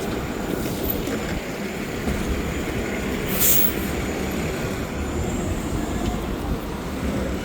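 Low, steady rumble of heavy street traffic, with a short burst of hissing air about halfway through.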